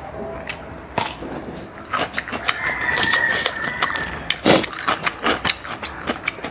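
Eating sounds: chewing and many small clicks and clacks of grilled apple-snail shells and a toothpick against a plate, with one sharper clack past the middle. About two and a half seconds in, a rooster crows in the background for over a second.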